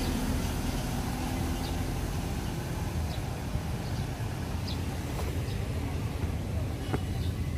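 Ford Ranger pickup's diesel engine pulling away, its note fading after about two seconds as the truck drives off, leaving a low steady rumble.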